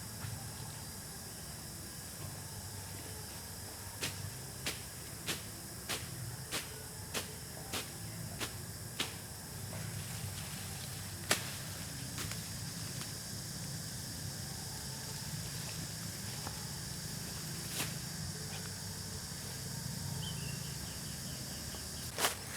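Outdoor village ambience: a steady high hiss over a low hum. About four seconds in comes a run of roughly ten sharp knocks, evenly spaced a little over half a second apart, then three lone knocks later on.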